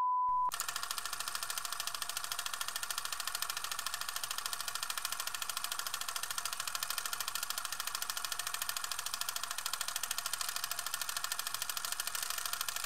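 A short, steady, high test-tone beep lasting about half a second, then the fast, even clatter of a film projector running.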